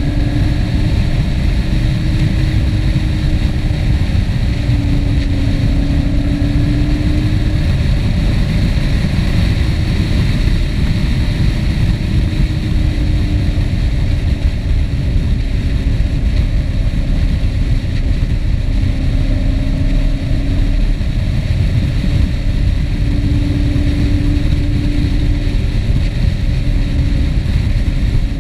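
Steady travel noise on a moving action camera: heavy wind rumble with a hiss above it, and a humming vehicle tone that comes and goes and drifts slightly in pitch.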